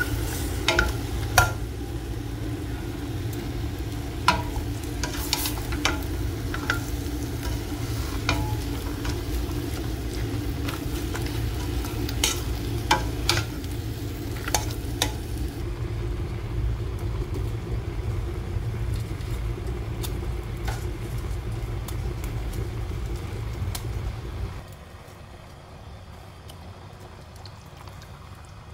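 Beef chunks sizzling as they brown in a stainless steel pot, stirred with a plastic spoon that knocks and scrapes against the pot now and then, mostly in the first half. About 25 s in the sizzle drops to a much quieter hiss.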